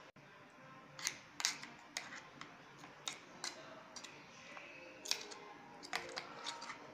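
Metal spoon stirring a thick masala paste in a steel jar, with irregular clinks and scrapes against the metal from about a second in.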